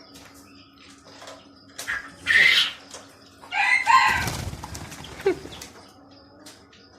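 A chicken being caught by hand squawks loudly twice and flaps its wings in a rapid flutter.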